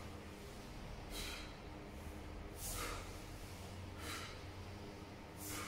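Short, sharp exhalations, one with each fa jin pole-shaking strike, coming about once every second and a half, four times.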